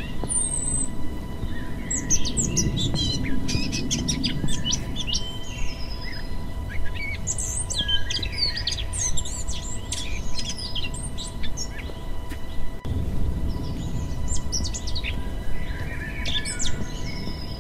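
Wild birds chirping and singing in scattered bursts, over a steady low outdoor noise and a faint constant tone.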